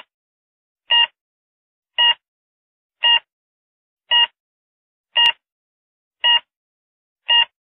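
Countdown-timer beeps: a short electronic beep about once a second, each on the same pitch, one for each number ticking down.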